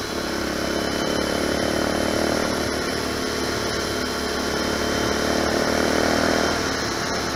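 Lifan 250 four-stroke pitbike engine running steadily under way, with a Yamaha YZ125 two-stroke dirt bike running alongside. The engine sound swells gently and eases off a little about six and a half seconds in.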